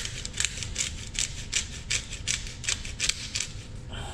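Hand pepper mill grinding black pepper: a quick series of rasping cranks, about three a second, that stops shortly before the end.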